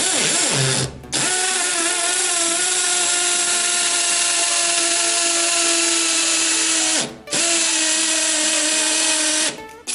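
Nanwei 48VF cordless brushless drill in hammer mode, drilling into a concrete ceiling with a masonry bit. It runs in three bursts, with short breaks about a second in and about seven seconds in, and stops just before the end.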